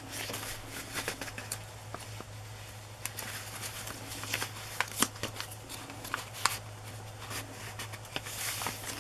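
Paper rustling and light tapping as hands handle the paper pages, tags and cardstock inserts of a handmade junk journal, with a few sharper ticks. A faint steady low hum runs underneath.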